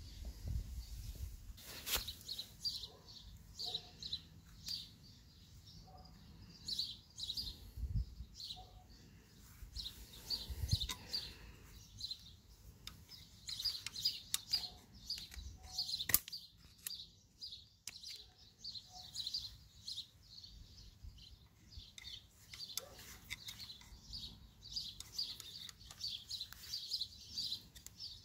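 Small birds chirping over and over. A few sharp metallic clicks and taps come from hand tools working on a scooter's rear shock absorber, the loudest about 2 s in and again about 16 s in.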